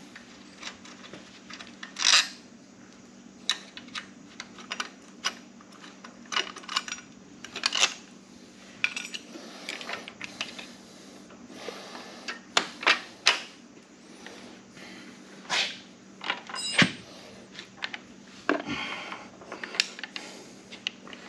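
Metal hand tools and bolts clinking and clicking at irregular intervals as the bracket bolts of a motorcycle engine guard are worked on by hand, over a faint steady hum.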